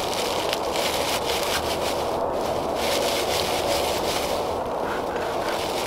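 Scraping and rubbing of something worked between the hands, in two rough stretches of about two seconds each, over a steady background hiss.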